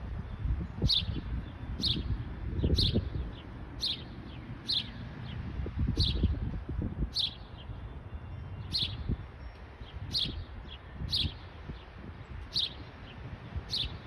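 A small songbird calling with short, sharp chirps that drop in pitch, repeated about once or twice a second, over a low rumble. The uploader takes it for a house sparrow.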